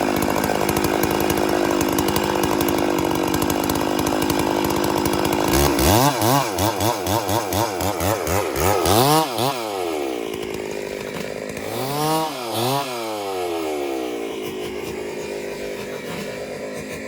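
Two-stroke chainsaw running steadily at high revs. From about six seconds in, the engine speed surges up and down in quick pulses for a few seconds, then drops toward idle, with two more brief revs a little later.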